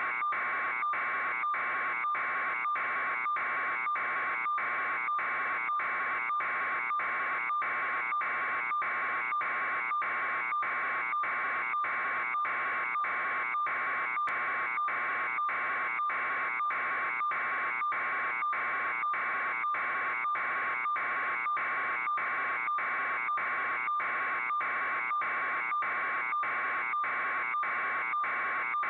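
A steady, harsh electronic buzz that pulses evenly just under twice a second and never changes.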